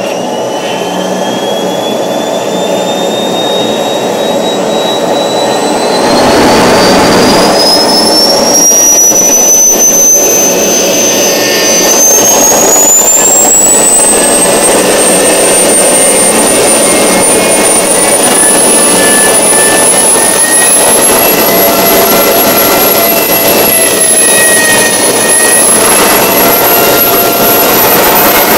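Homemade small jet engine spun up by a hand-held starter: a thin whine climbs steadily in pitch throughout. A loud rushing roar comes in about six seconds in and holds steady.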